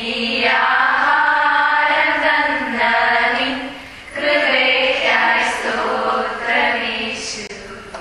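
Voices chanting in two long, held phrases, breaking briefly about four seconds in.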